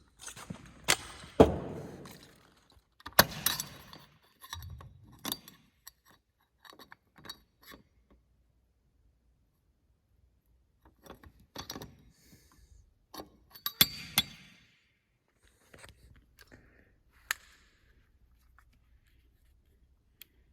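Fire alarm pull station being worked by hand: scattered sharp metal clicks and clanks with a jangle, in two busy spells either side of a quiet pause. The station won't trip on a plain pull and is judged defective.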